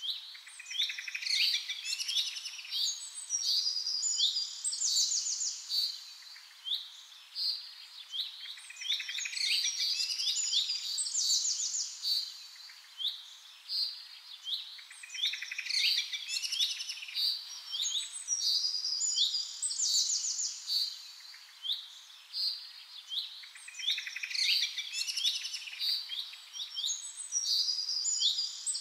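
Birds chirping and trilling, in spells of busy song a few seconds long that come back about every seven to eight seconds.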